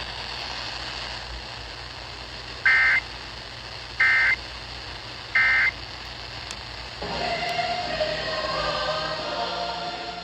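EAS end-of-message data signal: three short, identical bursts of warbling digital tones, about 1.3 seconds apart, over a steady background hiss. About seven seconds in, music fades in as the station returns to regular programming.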